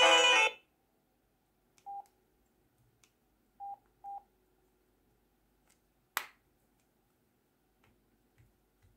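Samsung flip phone's ringtone melody cutting off about half a second in, followed by three short keypad beeps as buttons are pressed, and about six seconds in one sharp click as the flip is snapped shut.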